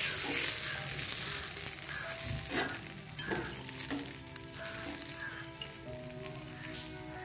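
Sizzling on a hot miniature cast-iron dosa tawa as its wet surface is wiped. It is loudest in the first second, then steadier, with a few sharp pops.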